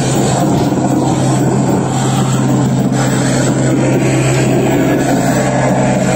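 Live harsh noise music: a loud, dense, unbroken wash of distorted noise over a steady low hum.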